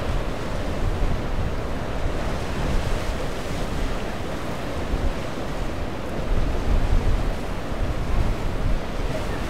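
Surf washing against jetty rocks with wind buffeting the microphone: a steady rumbling rush of noise, swelling briefly about six to eight seconds in.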